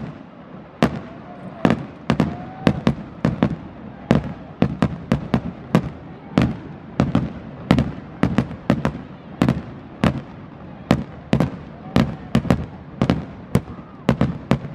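Aerial fireworks shells bursting in rapid succession: sharp bangs and crackles, about three a second, with no pause.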